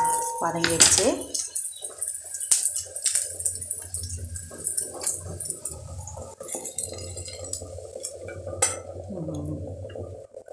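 A metal spoon scraping and clinking against a stainless steel kadai while garlic, shallots and chillies are stirred. It makes a run of irregular sharp clicks and scrapes.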